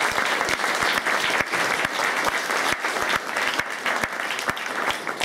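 Audience applauding: dense, steady clapping of many hands that thins out near the end.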